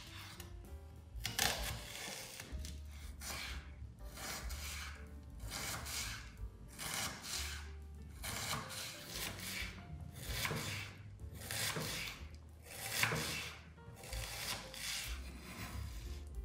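Kitchen knife slicing through a vegetable on a wooden cutting board, one drawn stroke a little under every second, with quiet background music underneath.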